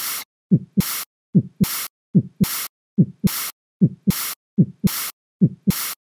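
Heart sound sample with a murmur, at about 70 beats a minute. Each beat has a low first sound, then a sharp, shorter second sound followed at once by a short hissing murmur. That places the murmur in early diastole.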